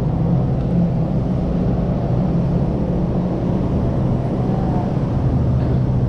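Steady low rumble of motor traffic on the bridge overhead, with a constant engine drone running through it.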